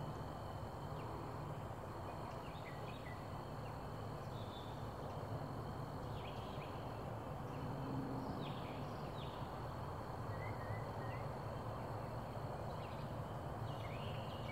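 Outdoor ambience: scattered short bird chirps over a steady low rumble and a faint steady high-pitched tone.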